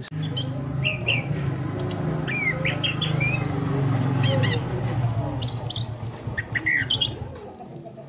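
Chestnut-capped thrush (anis kembang) song: a lively run of quick chirps and short whistles, some rising and some falling, over a steady low hum.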